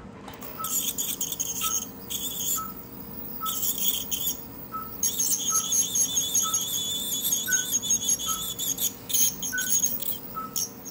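Ultrasonic dental scaler working on a dog's teeth: a high-pitched hiss and whine that runs in stretches and pauses twice. Under it, the anaesthetic ECG monitor beeps steadily with the heartbeat, about three beeps every two seconds, a couple of them a little higher in pitch.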